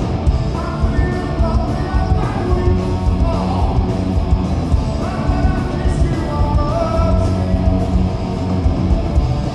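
Punk rock band playing live, with electric guitars, bass and drums at a steady beat and a male singer singing into a microphone over them.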